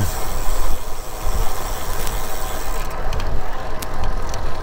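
Wind rushing over the camera microphone of a road bicycle riding along a paved street, with low buffeting and tyre noise, and a few faint light clicks.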